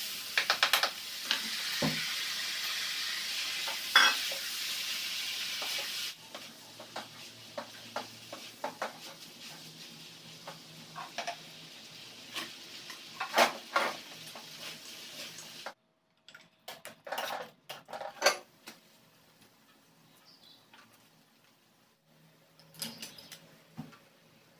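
Food sizzling loudly as it is tipped into a wok of hot oil, the sizzle dying down after about six seconds. Then a spatula clinks and scrapes against the wok as the food is stirred, with a few sharp utensil clinks later on.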